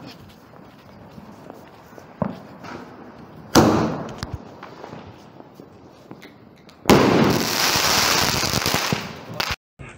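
Aerial sky shot firework going off: a sudden loud launch about three and a half seconds in that fades over a second, then about seven seconds in a loud, dense crackling burst lasting over two seconds as the shot breaks into crackling stars. It cuts off abruptly near the end.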